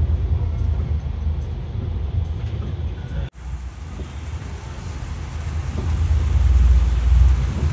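Steady low engine rumble heard from on board a bus. The sound breaks off for an instant about three seconds in, then the rumble carries on under a steady hiss of heavy rain and tyres on a wet road.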